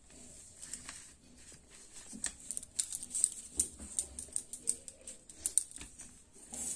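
Irregular small clicks and taps of fingers and nails against a steel plate as pieces of soft maida dough are pinched off a mound.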